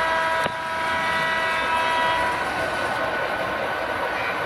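Model diesel locomotive's electronic sound-system horn holding a long multi-note chord, with a click about half a second in, then cutting off about two seconds in. Model trains keep rolling on the track underneath with a steady rumble.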